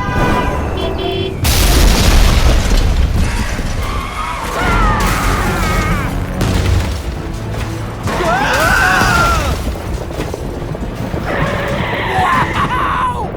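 Loud background music mixed with cartoon sound effects, with a sudden boom about one and a half seconds in and wavering high-pitched sounds later on.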